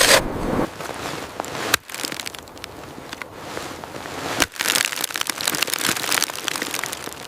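Snow being dug and shifted: a dense run of crunching and scraping, broken off abruptly twice, about two seconds and four and a half seconds in.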